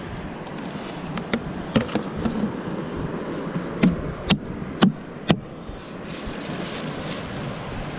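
Plastic bucket lid being pressed down onto a bucket: a few sharp snaps and knocks, the loudest four about half a second apart in the middle, over a steady background hiss.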